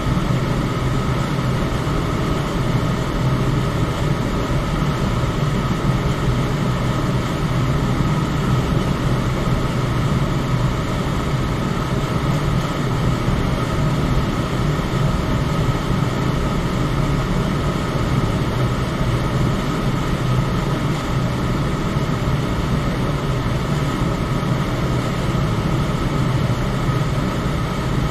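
Electric fan running steadily: an even whooshing hum that is strongest low down, with a faint steady tone above it from the motor.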